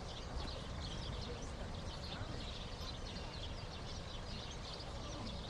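Many small birds chirping continuously over a low background rumble.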